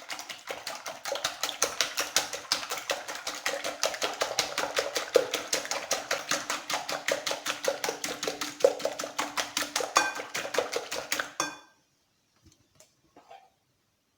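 Wire whisk beating raw eggs in a bowl, striking the bowl in a fast, even rhythm of about five clicks a second, then stopping abruptly about three seconds before the end.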